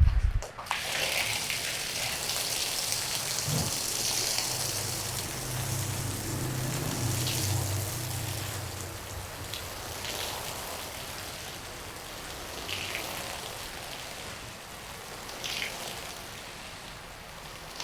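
Water spraying and splattering onto a wet carpet during rinsing: a steady hiss that starts about half a second in and slowly grows fainter.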